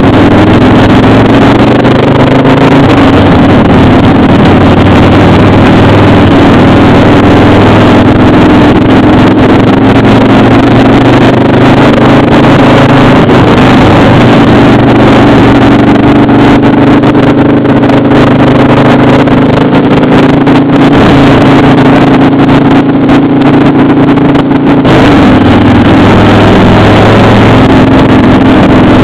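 Motorcycle engine running steadily at cruising speed, heard from on board the riding bike. Its note wavers in the middle and shifts about twenty-five seconds in, as with a throttle or gear change.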